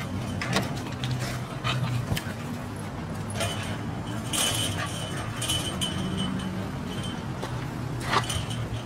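A sheepadoodle and a Doberman Pinscher puppy play-fighting: scuffling, with a few short metallic jingles and clicks, over a steady low hum.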